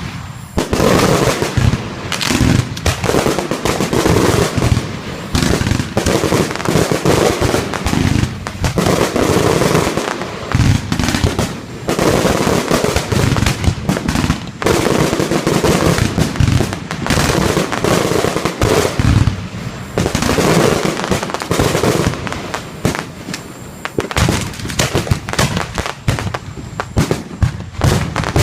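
Professional fireworks display: aerial shells bursting one after another in a dense, near-continuous run of loud bangs.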